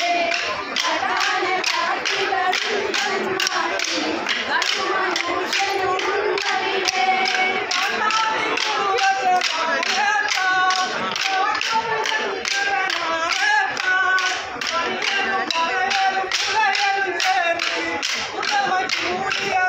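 Short wooden kolkkali sticks clacked together by the dancers in a steady rhythm, about three strikes a second, under a group singing the accompanying folk song.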